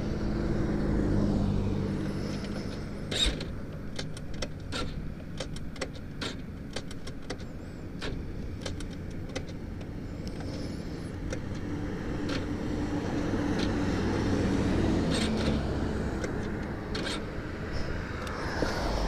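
Road vehicle engines humming, loud at first, fading, then swelling again a little past the middle, as cars pass. Between them comes a run of sharp clicks and ticks.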